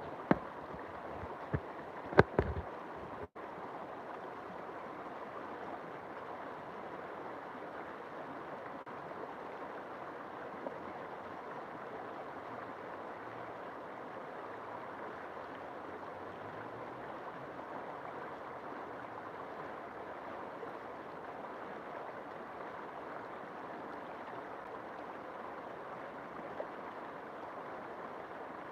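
River water flowing steadily. In the first few seconds there are a few sharp clicks or knocks, the loudest about two seconds in, and a momentary break in the sound.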